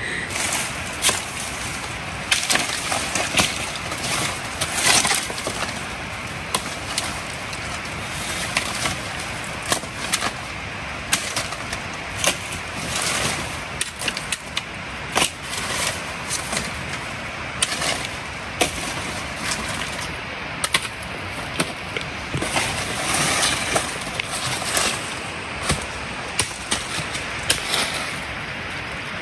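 Dry sticks and leaf litter rustling and crackling as dry firewood is gathered, with many sharp snaps and cracks over a steady rustle.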